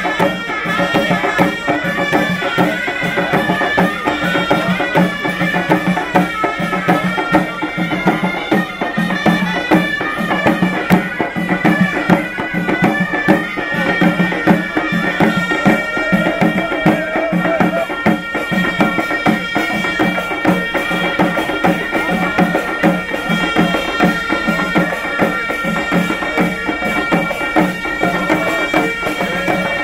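Traditional Moroccan music: reed wind instruments holding long, steady notes over a driving, even beat of hand-held drums.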